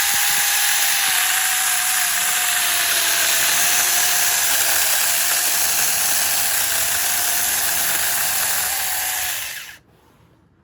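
Saker mini cordless chainsaw running at full speed, its electric motor's whine dropping slightly in pitch as the chain cuts through a small tree limb. The motor stops abruptly near the end.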